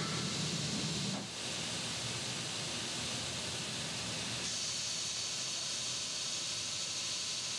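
Automated abrasive-belt sanding head working a bare aluminum scuba cylinder: a steady hiss of belt and machinery. About halfway through the hiss turns brighter and sharper as the belt comes down onto the spinning tank's surface.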